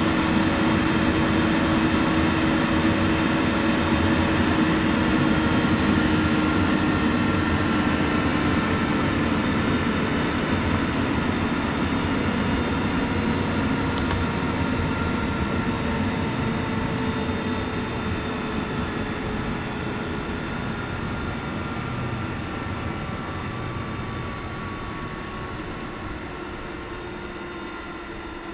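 Eberspacher Airtronic 3 diesel air heater in its shutdown run-on, its fans still spinning to cool the heat exchanger. It is a steady whir whose tones slowly fall in pitch as it gets gradually quieter.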